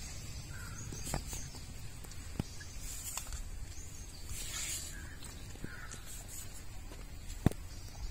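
Quiet outdoor ambience with a crow cawing, about three and again about four and a half seconds in, and a single sharp click near the end.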